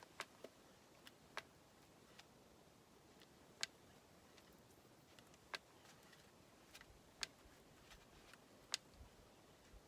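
Hand grease gun being pumped into a grease fitting: faint, sharp clicks of the gun, the strongest coming every one and a half to two seconds, with fainter ones between, against near silence.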